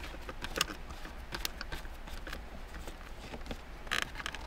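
Scattered light clicks and short scrapes of a hand screwdriver working a T20 Torx screw out of a plastic centre-console trim panel.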